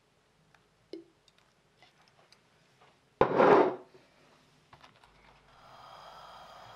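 Kitchen handling sounds: a few light taps and clicks, then a loud scraping clatter lasting under a second about three seconds in. A steady hiss starts near the end.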